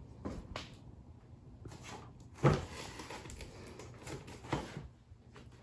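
Small cardboard boxes being handled and set down on a cardboard carton: a few light knocks, with one louder thump about two and a half seconds in.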